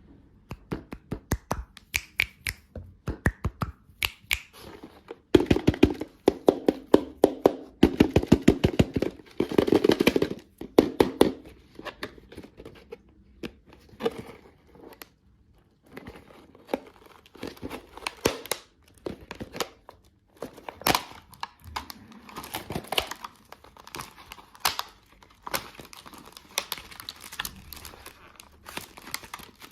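Candy packaging being torn open and crinkled by hand: a long run of sharp crackles and clicks, densest and loudest from about five to eleven seconds in.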